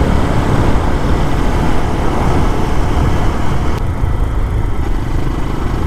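Lifan KPX250's single-cylinder four-stroke engine running steadily while the motorcycle is ridden, mixed with a low rumble of wind noise.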